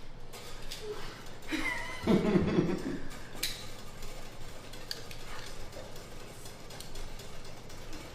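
A spoon clinking and scraping against a bowl while cake batter is stirred, in a run of small irregular knocks.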